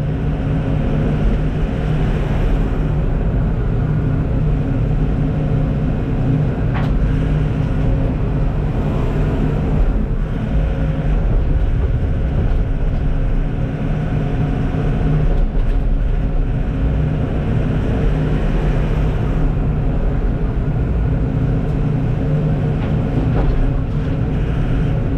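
Kenworth T880 truck's diesel engine running steadily while the truck drives with a full load of fill, heard from inside the cab along with road noise.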